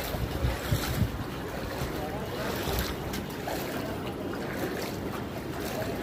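Steady rushing noise with wind buffeting the microphone, the gusts heaviest in the first second.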